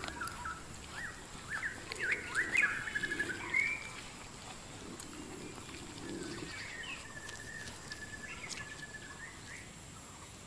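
Forest birds calling: short chirps and rising whistles with a quick trill about three seconds in, then a run of evenly repeated notes in the second half. Under them are soft, low gnawing sounds and faint clicks as a leopard chews at an old sambar carcass with its carnassial teeth.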